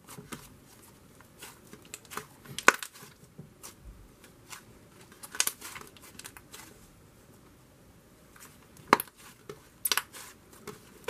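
Thick, buttery clay slime being kneaded and squeezed by hand, giving irregular sharp clicks and pops with softer crackling between them; the loudest pops come about three seconds in and near the end.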